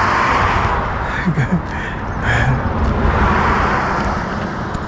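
Cars passing on the road close by, a rushing tyre-and-engine noise that swells and fades at the start and swells again about three seconds in.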